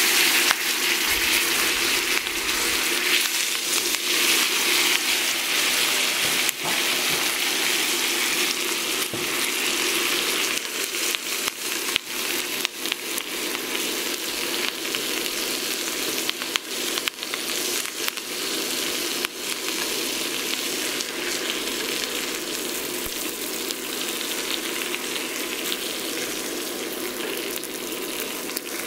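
A ribeye steak sizzling in foaming butter with thyme and garlic in a cast-iron skillet, the frying easing a little toward the end. Occasional clicks of tongs and a wooden spoon against the pan as the steak is handled and basted.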